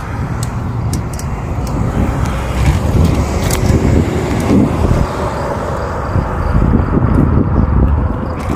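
Wind rushing over the microphone of a moving bicycle, a rough low rumble that rises and falls with the riding speed.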